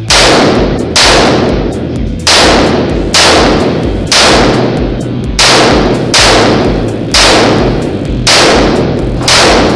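Pioneer Arms AR-15 rifle firing ten single shots, about one a second, each shot echoing sharply around the enclosed range.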